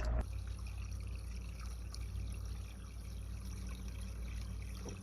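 Creek water trickling steadily, with a low steady rumble underneath.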